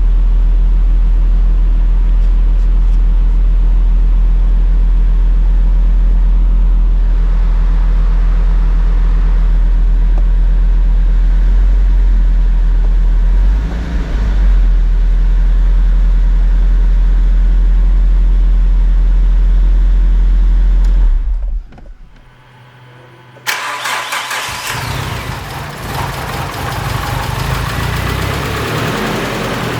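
Rebuilt Nissan CA18DET turbo four-cylinder engine running with a steady deep drone. It drops away about two-thirds in, and after a short lull a louder, brighter engine sound comes in suddenly, like a start, and settles to an idle.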